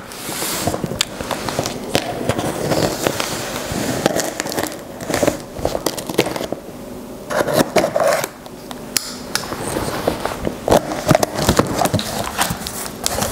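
Cardboard shipping box being cut and pried open by hand: a knife blade scraping and slicing through packing tape, with the cardboard scraping, crackling and clicking as the flaps are worked loose.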